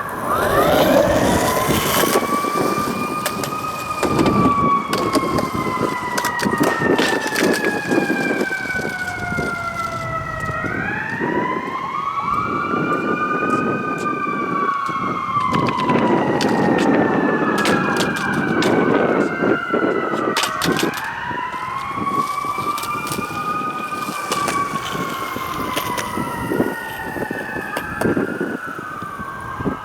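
Emergency vehicle sirens wailing, each one rising quickly and then falling slowly over several seconds. From about a third of the way in, two or more sirens overlap. Underneath are sharp knocks and a rolling rumble.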